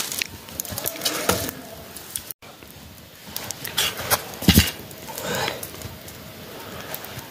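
Scattered clicks and rustles of handling beside a crackling campfire, with a knock about halfway through as a metal cooking pot is set down by the fire.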